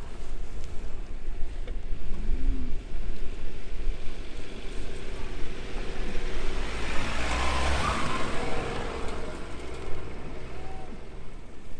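A car driving off-road with its engine running, a low rumble throughout, joined by a rushing noise that swells to a peak a little past the middle and then eases off.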